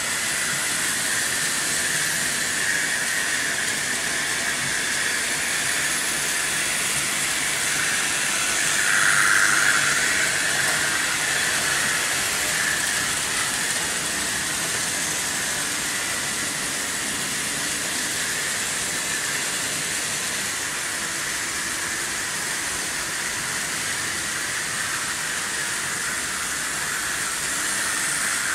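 Märklin H0 model trains running on metal M-track: a steady hissing whir of the locomotive motors and wheels rolling over the track, briefly louder about nine seconds in.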